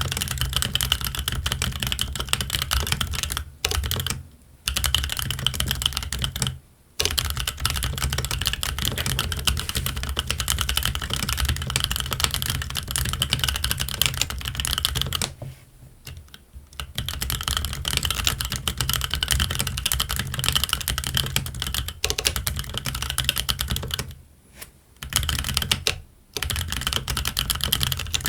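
Fast, continuous typing on a Keychron Q1 mechanical keyboard fitted with Gazzew Boba U4T tactile switches and Cherry-profile ABS keycaps. Rapid key clacks run in long runs, broken by a few brief pauses of under a second to about two seconds.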